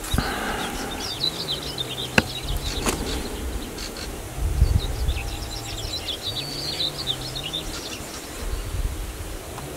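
Small birds chirping and singing in the background, many short high notes. An insect buzzes close by in a low steady hum that starts and stops three times.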